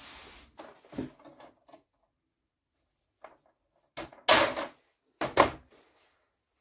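Tin snips cutting through a perforated galvanised steel strap, giving two loud sharp cuts about a second apart. Before them come a few lighter clicks and knocks.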